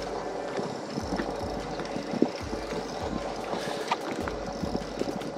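Wind buffeting the microphone and water lapping against the hull of a bass boat, with irregular low thumps and a sharp knock about two seconds in.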